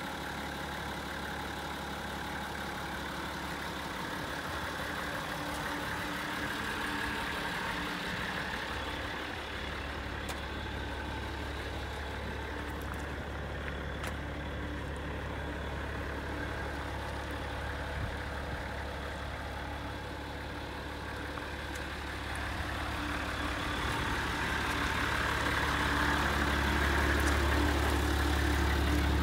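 Nissan Civilian bus's TD42 4.2-litre straight-six diesel idling steadily, getting louder over the last few seconds.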